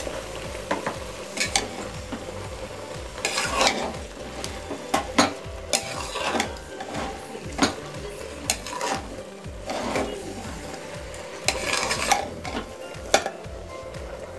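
Metal spoon stirring rice, moong dal and fried vegetables in an aluminium pressure cooker, with a dozen or so irregular scrapes and knocks against the pot, the mixture sizzling underneath.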